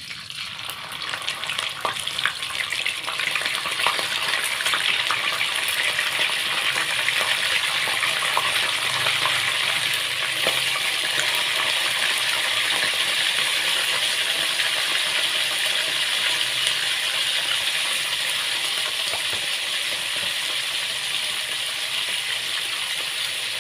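Milkfish frying in hot oil: a loud, dense sizzle with a constant crackle and spatter. It starts suddenly, builds over the first few seconds, then holds steady.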